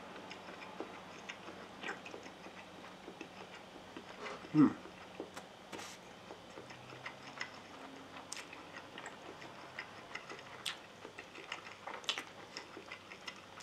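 A person chewing and eating instant fried noodles with chopsticks, with scattered small clicks throughout. One short, loud mouth sound comes about four and a half seconds in.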